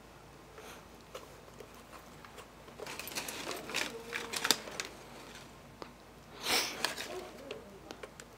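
Quiet handling noise of a plastic Empire Prophecy paintball loader being turned over in the hands: scattered light taps and clicks of the plastic shell, with a short rustle about six and a half seconds in.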